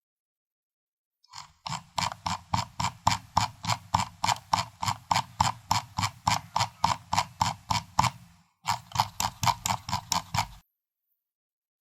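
Computer mouse scroll wheel rolled through its notches: a steady run of sharp clicks, about three or four a second, lasting several seconds, then after a short pause a second, shorter run.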